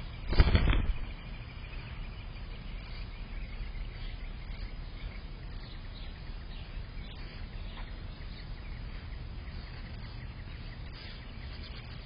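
Red-bellied woodpecker's wings flapping in a brief loud burst about half a second in as it flies in and lands on the tree trunk. After that, a steady low background hiss with faint bird chirps.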